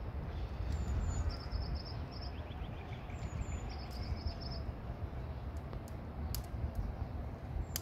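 Outdoor ambience: a steady low rumble with short trills of rapid high chirps, twice, and a lower falling run of chirps near the middle.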